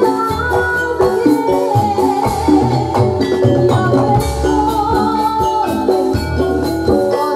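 Javanese gamelan music accompanying a Jathilan dance: struck pitched notes moving in steps over repeated low drum strokes and jingling percussion.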